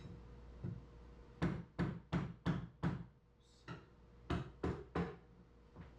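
Two runs of sharp knocks: five evenly spaced at about three a second, then after a pause three more.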